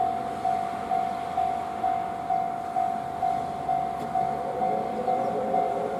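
Railway level-crossing warning bell ringing steadily, a little over two strokes a second on one tone, warning of an approaching train. In the last second or so a lower, slightly rising hum joins in as the JR Shikoku 2000 series diesel train draws nearer.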